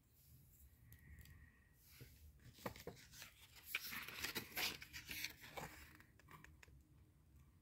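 Plastic packaging and paper rustling and crinkling as items are handled in a cardboard box: quiet, irregular crackles and scrapes, busiest in the middle few seconds.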